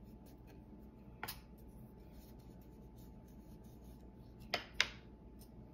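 Faint hand handling of glued wooden truck pieces: a short rub or scrape about a second in, then two more close together near the end, over quiet room tone.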